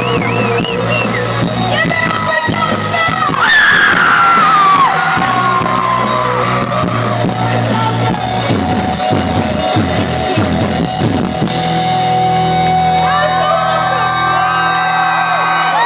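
Live band playing a ballad while a woman and a man sing a duet into handheld microphones, their voices sliding between notes; in the second half long notes are held, and near the end she sings on alone.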